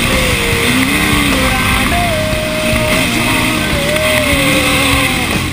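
Yamaha dirt bike engine running at speed, its pitch rising and falling as the throttle changes, with wind rush on the microphone.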